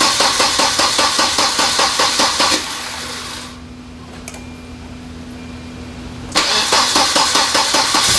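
1993 Volvo 940 turbo's 2.3-litre four-cylinder being cranked by the starter without catching, in two goes: cranking stops about two and a half seconds in, a steady hum fills the pause, and cranking resumes about six seconds in. The engine is slow to fire because the fuel lines and new filter drained empty during the fuel pump replacement and are still refilling.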